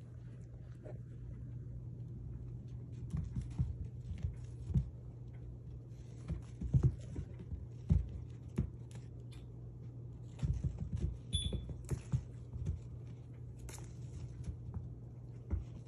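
Kittens pouncing and scrambling on a carpet runner while a hand plays with them and rubs them, giving scattered soft thumps, scuffs and clicks over a steady low hum. There is one brief high squeak about eleven seconds in.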